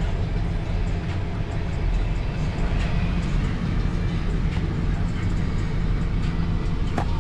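Steady mechanical running noise from HVAC equipment: a low, even hum under a rushing noise, with a few faint ticks.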